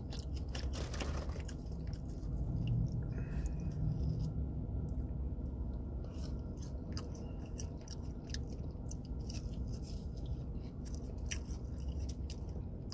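Close-up chewing and crunching of crispy fried food, with a steady low hum underneath.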